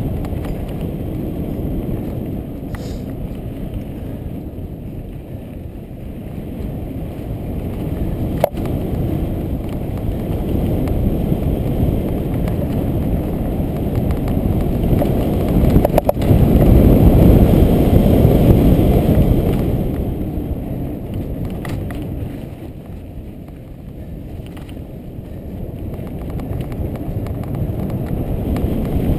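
Mountain bike rolling fast down a dirt trail, heard from a helmet camera: a steady low rumble of tyres and rushing air that grows louder midway, with a couple of sharp knocks from bumps.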